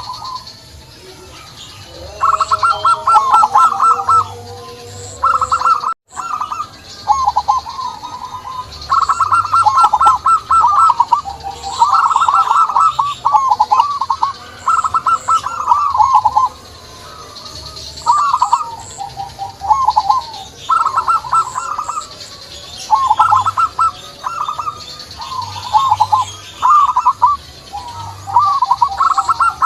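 Zebra dove (perkutut) cooing song: phrases of one to two seconds, each a quick run of rolling coo notes, repeated one after another with short gaps.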